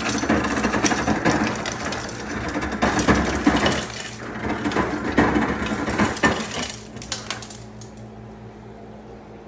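Refrigerator door ice dispenser running, ice clattering and rattling into a glass, stopping about seven seconds in, after which a steady low hum remains.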